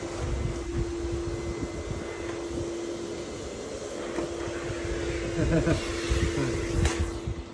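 A steady mechanical hum holding one pitch over a low, uneven rumble; the hum stops right at the end.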